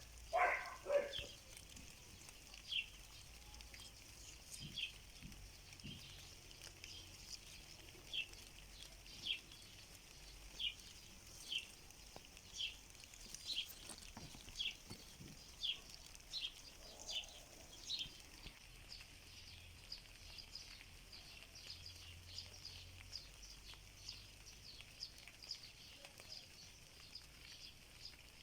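A bird repeating a short, high, falling chirp about once a second over a steady hiss of rain. A louder animal call sounds right at the start.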